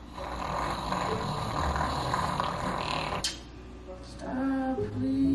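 A man's deliberately exaggerated fake snoring: a long, rasping snore that cuts off abruptly about three seconds in, then a shorter, voiced snore near the end.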